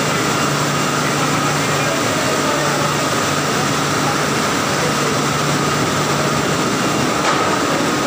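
Banana washing and conveyor line running: a steady machine noise with a constant low hum and a thin steady whine above it.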